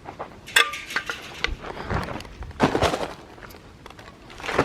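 Irregular footsteps and shoe scuffs on rough ground, with a few sharp knocks, as a person steps down into a ditch and climbs back out of it.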